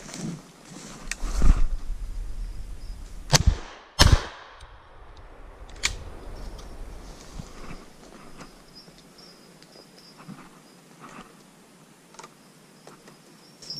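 Footsteps through forest undergrowth and brush, with three sharp knocks in the first four seconds, the loudest near the start, then quieter rustling steps.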